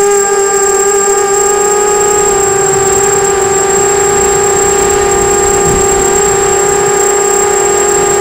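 Electric motors and propellers of a 250-size FPV racing quadcopter whining steadily in flight, heard close up from the onboard camera. The pitch holds nearly constant with a slight wavering, along with a thin high steady tone.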